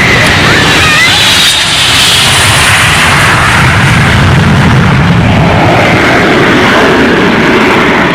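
Concorde's four Olympus 593 turbojets running at high power for a go-around: a loud, steady jet roar with a deep rumble underneath and a hiss on top.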